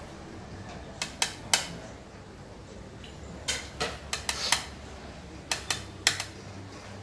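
Xiangqi pieces clicking together in a player's hand: about a dozen sharp clicks in irregular clusters, a few in the first second and a half, a quick run of clicks around the middle, and three more near the end.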